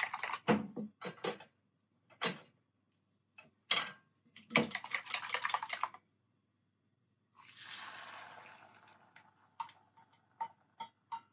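Beaten eggs stirred with chopsticks in a metal bowl, with quick runs of clicks against the bowl. Then the egg is poured into a hot oiled frying pan and sizzles, the hiss fading over a second or two, followed by a few sharp clinks of the chopsticks on the bowl as the last of the egg is scraped out.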